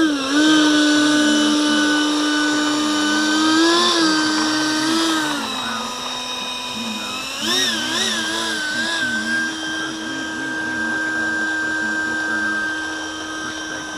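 Electric ducted fan of a Durafly Sea Vixen RC jet (BL15 fan unit driven by an E-flite BL32 3200kv motor) whining at part throttle as it taxis. The pitch rises briefly about four seconds in, wavers up and down with the throttle around eight seconds, then holds steady.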